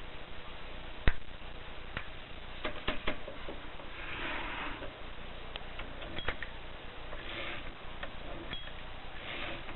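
Mercedes portable typewriter being handled: scattered, irregular mechanical clicks and knocks, one sharp and loud about a second in, with three short rasping swishes later on.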